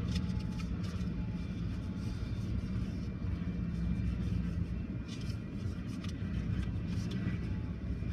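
Steady low rumble of a freight train of covered hopper cars rolling past a road crossing, heard from inside a car, with faint scattered clicks.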